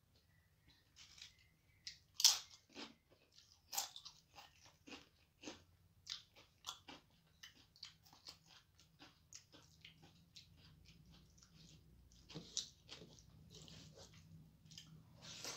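Close-up eating sounds: a string of short chewing and mouth clicks as a mouthful of rice is eaten by hand, along with the squish of fingers mixing soft starchy rice on a metal plate.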